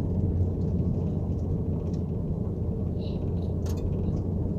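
Van driving along a road: a steady low rumble of engine and tyres.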